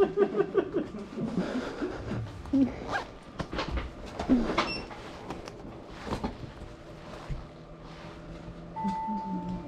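Handling knocks and clicks as a cardboard package is set down on a post office counter scale, over low room background. A steady electronic tone starts near the end.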